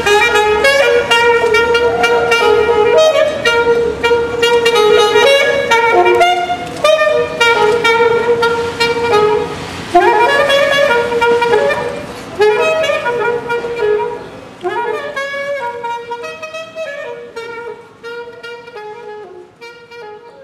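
Saxophone playing a jazzy melody line of moving and held notes, dying away over the last several seconds.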